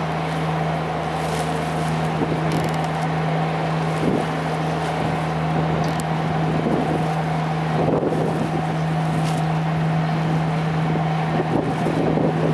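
Steady drone of a boat's engine, a constant low hum with a fainter higher tone above it, with wind gusting on the microphone now and then.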